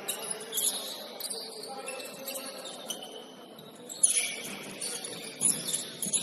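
Basketball game in a gym: sneakers squeaking in short high chirps on the court, with a sharp knock about four seconds in and faint voices underneath.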